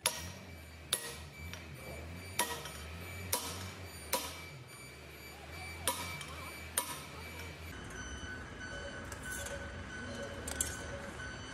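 Metal being struck: about seven sharp, ringing clanks at irregular intervals over a low steady hum. The clanks thin out about two-thirds of the way in, and a steadier hum with a faint high tone remains.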